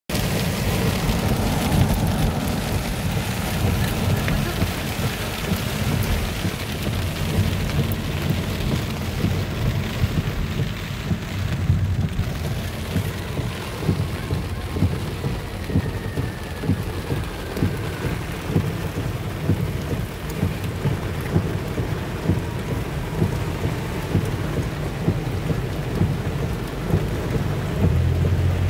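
Heavy rain drumming on a car's roof and windshield, heard from inside the car, over a steady low rumble.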